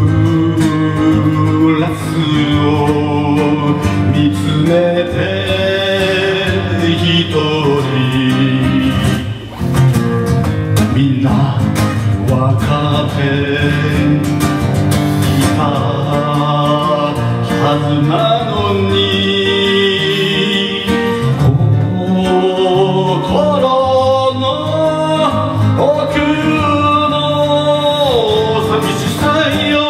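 A man singing a song in Japanese while accompanying himself on an acoustic guitar.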